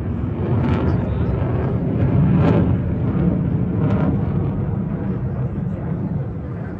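Jet aircraft flying past: its engine noise swells to a peak about two seconds in, then slowly fades.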